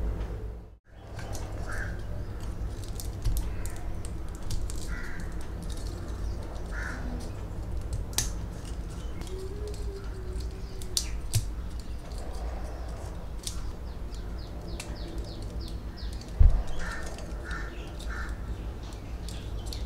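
Plastic parts of an HG Uraven Gunpla kit clicking and ticking as pieces are snapped on and the joints are posed by hand, over a steady low hum. There is a single sharp thump a little past the three-quarter mark.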